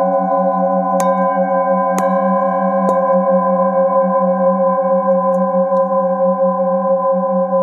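Metal singing bowls ringing together in a steady, layered hum with a slow waver in the lowest tone. Three sharp mallet strikes about a second apart, starting about a second in, each add a fresh ringing tone that goes on sounding.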